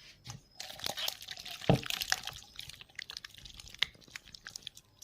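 Water splashing and dripping in shallow water: many irregular small splashes, with one louder thud about a second and a half in.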